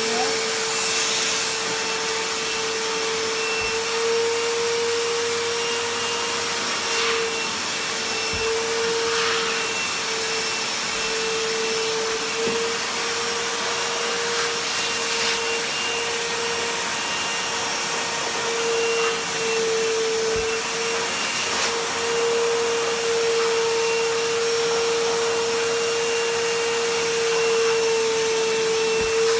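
Stanley FatMax 51733 1600 W wet/dry vacuum running steadily with a constant whine, its nozzle worked over carpet to suck up flour.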